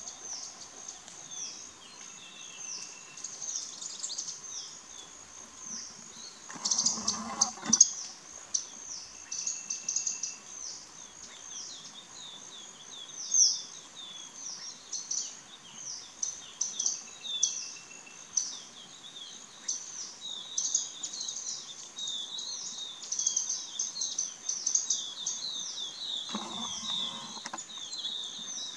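Forest chorus of dense, continuous high-pitched chirping, with a few short high whistles. Two brief bursts of noise break in, one about a quarter of the way through and one near the end.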